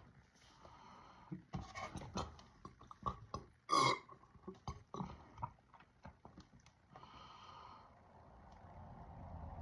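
Soda being chugged from a 2-liter plastic bottle: a run of quick gulps and glugging clicks, with one louder, short burst a little under four seconds in.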